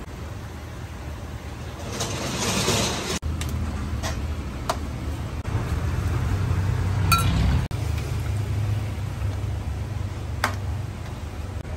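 Metal ladle and spatula clinking against steel woks, with one ringing clang about seven seconds in, over a steady low rumble; a brief hiss a couple of seconds in.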